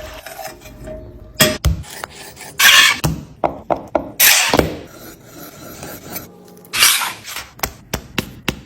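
Eating and table sounds: irregular clicks and knocks, like utensils against dishes, with three short noisy rasping bursts spread through.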